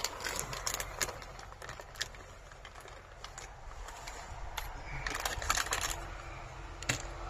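Walnut kernels crumbled between the fingers and dropped onto a glass baking dish: scattered light crackles and clicks, thicker about five seconds in, with a sharp click near the end.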